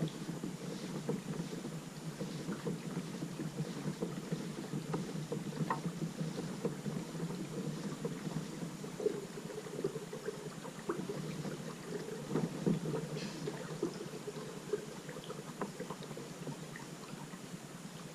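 Water splashing and lapping around a kayak, a steady wash of noise with small scattered ticks and some wind on the microphone.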